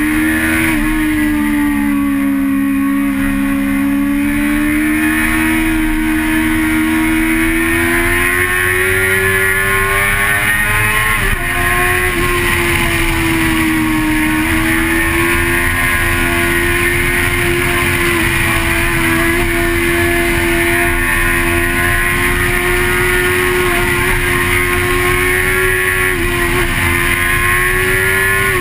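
Vehicle engine running hard at sustained high revs, heard from an onboard camera with steady road and wind noise. Its pitch creeps up, drops suddenly about eleven seconds in, then holds nearly steady.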